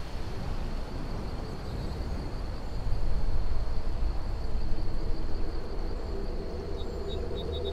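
Outdoor ambience in falling snow: a steady low rumble that swells a little a few seconds in, under a thin steady high whine. A quick run of short high chirps comes in near the end.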